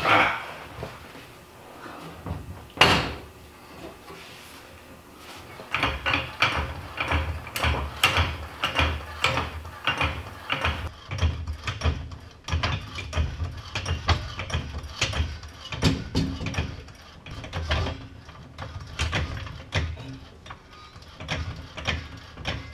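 Hydraulic floor jack being pumped by hand: a steady run of short mechanical clunks, about one or two a second, as it lifts a gray water tank up under a trailer frame. A few scattered knocks come before the pumping starts.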